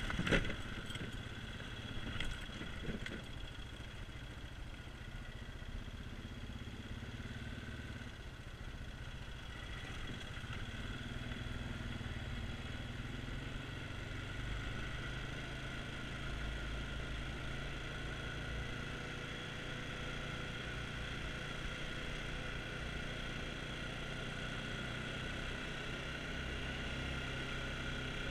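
ATV engine running steadily under way, with a few sharp knocks in the first three seconds as it rides over rough ground.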